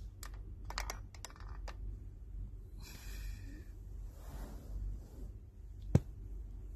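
Handling and rustling noise close to a phone's microphone as the phone, bedding and a plush toy are moved about, with a quick run of clicks in the first two seconds and one sharp, loud tap about six seconds in. A low steady hum sits underneath.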